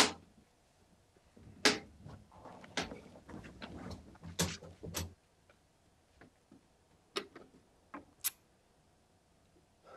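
Scattered clicks and knocks from an old wooden-cased radio set being handled, with a cluster of rustling knocks for a few seconds after the first click and a few sharp clicks later on.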